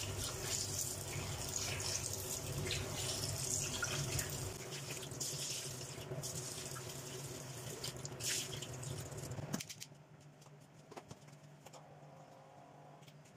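Water running from a kitchen tap into the sink, splashing, then shut off suddenly about ten seconds in, followed by a couple of faint knocks.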